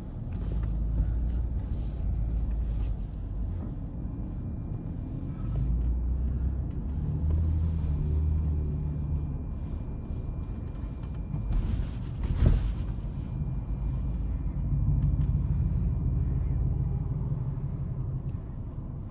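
Car in motion, a steady low road and engine rumble heard from inside the cabin that swells and eases, with one short louder sound about twelve seconds in.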